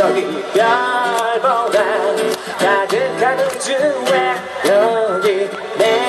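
A man singing while strumming an acoustic guitar, played live through a sound system.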